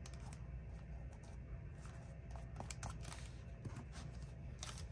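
Faint, scattered light clicks and rustles of paper and craft pieces being handled on a journal page, over a low steady hum.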